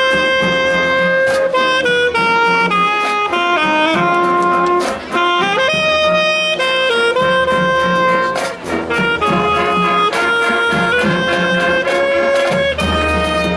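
Marching band playing: brass and saxophones carry a melody of held notes, with drum hits marking the beat.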